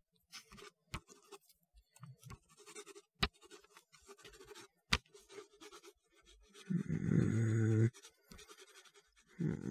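Pencil scratching and scribbling on paper, broken by three sharp taps. About seven seconds in, a man's voice hums one short, steady note.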